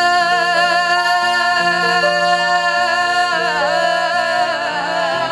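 A woman's voice sustaining a long, wavering sung note, with a run of ornamented bends about three seconds in, in a Punjabi Sufi devotional song. Beneath it, instrumental accompaniment moves through lower notes in steps.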